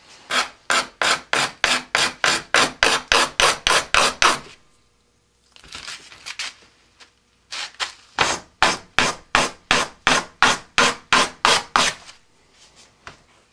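Sanding block being rubbed back and forth over the edge of a rocket's switch band (a short body-tube ring), squaring the edge and taking off its ridge. Two bouts of quick, even strokes, about three a second, with a pause of a few seconds between them.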